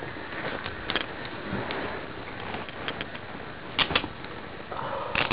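Handcuffs being ratcheted onto a suspect's wrists: scattered metallic clicks, with a close pair of sharper clicks about four seconds in and another near the end, over rustling of clothing and handling of the body camera.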